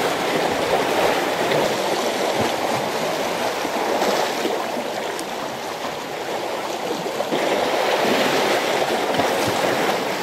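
Seawater washing against a harbour breakwater: a steady rushing wash that eases off for a few seconds around the middle, then swells again.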